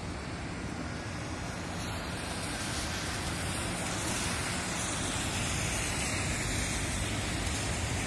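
Electric REM light-metro train running along an elevated viaduct: an even rushing noise with no squeal or pitched whine, growing a little louder from about two seconds in. Tyre hiss from traffic on wet pavement blends with it.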